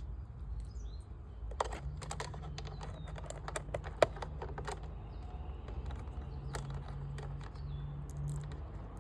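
Irregular clicks and taps of hands handling tools and parts, over a steady low hum that starts about two seconds in. A few bird chirps near the start.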